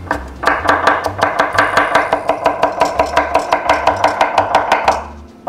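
Chinese cleaver chopping kimchi finely on a wooden cutting board, in rapid, even strokes that stop near the end.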